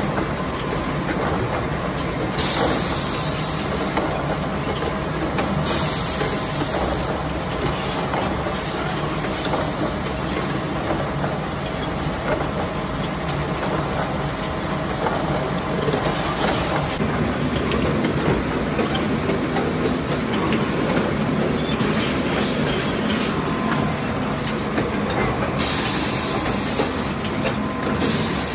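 Automatic rotary PET bottle rinsing and filling machine running: a steady mechanical clatter with water spraying and splashing, and a few short bursts of hissing.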